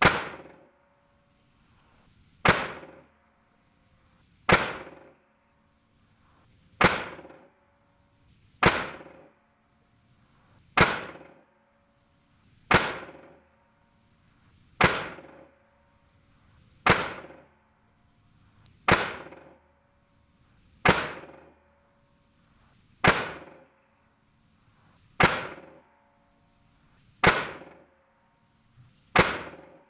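Custom-built .22 calibre PCP air rifle firing 40-grain slugs: fifteen sharp shots, about one every two seconds, each with a brief ringing tail.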